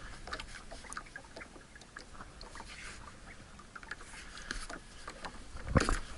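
Small knocks and clicks on a small boat's hull and bow as a rope is handled, with one louder knock near the end.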